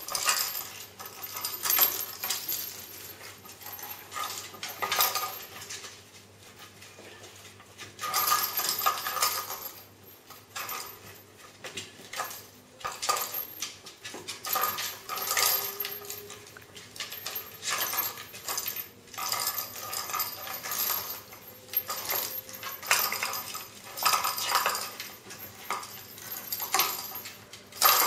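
Kittens batting and pawing at a wooden box toy with holes, which knocks and clatters on a tiled floor in irregular clusters of sharp knocks and rattles.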